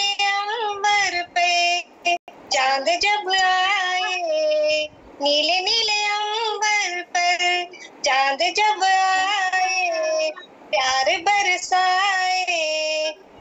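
A woman singing a song unaccompanied, in high held and sliding notes and in phrases of a few seconds with short breaks between them, heard through a video call's audio.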